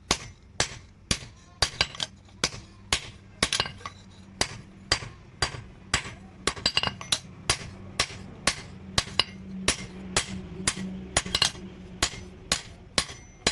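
Hand hammer striking steel on an anvil in a steady rhythm, about two to three ringing blows a second, with a few quick runs of lighter taps in between.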